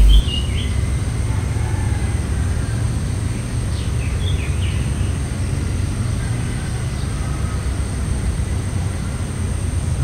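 Steady low rumble of outdoor background noise, with a few faint bird chirps near the start and about four seconds in.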